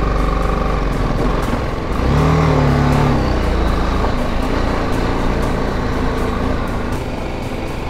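BMW G310GS motorcycle's single-cylinder engine pulling up a gravel mountain road. The revs rise and fall about two seconds in.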